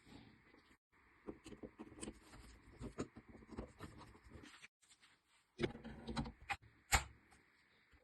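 An M7 bayonet being wiped and handled during cleaning: rubbing and scraping with scattered small clicks and knocks. A sharper knock comes about seven seconds in.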